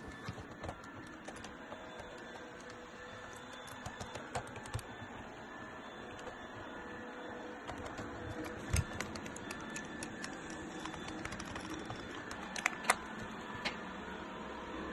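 Faint scattered clicks and taps of a hard plastic toy shell being handled and turned over on a silicone work mat, with a louder knock about nine seconds in and a few sharper clicks near the end.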